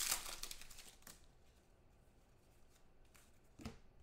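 Football trading cards being handled: a rustle of cards and pack wrapper at the start, fading within a second, then a few short scrapes and flicks of cards, the clearest one near the end.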